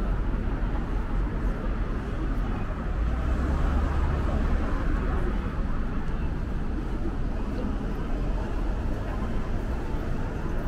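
City street traffic noise: a steady low rumble of cars on the road, swelling for a moment about three seconds in as a vehicle goes by.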